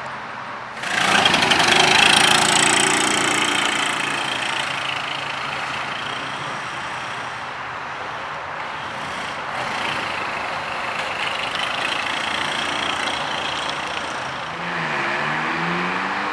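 A car engine fires up with a loud flare of revs about a second in, then settles to a steady idle. Near the end the revs rise and dip again.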